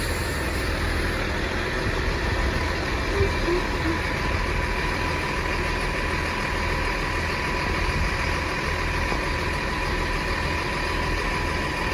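Chiltern class 165 diesel multiple unit standing with its underfloor diesel engines idling, a steady rumble with a constant high whine over it.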